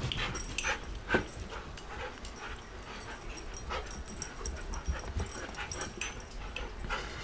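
Siberian huskies running a chase game: irregular thumps and scrabbling of paws on carpet and furniture, the loudest thump about a second in.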